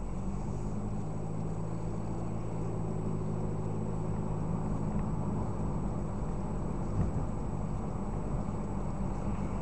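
Steady low engine and road drone inside a moving car's cabin, picked up by a windshield-mounted dash camera's built-in microphone, with a faint steady high-pitched whine and a light bump about seven seconds in.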